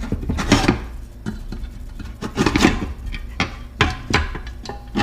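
Metal parts of a Johnson outboard recoil starter being handled, irregular clinks and scrapes, as the new rewind spring is hooked onto the starter plate.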